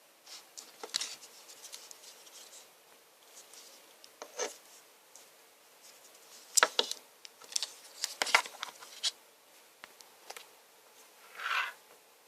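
Hands handling a smartphone and its packaging: scattered sharp clicks and taps with short rubbing and scraping of plastic and cardboard, busiest in the middle, then a longer rustle near the end.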